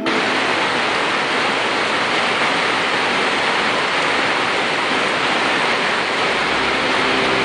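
Steady, even rushing of water, like a waterfall or stream. A low hum and a few steady tones come in near the end.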